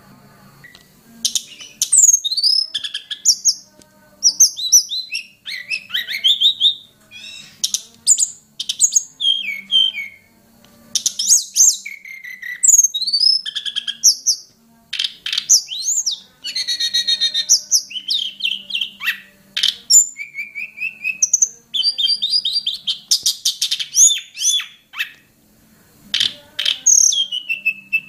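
Hill blue flycatcher (tledekan gunung) singing: rapid, varied phrases of sweet high whistles and chirps that sweep up and down in pitch, coming in bursts separated by short pauses.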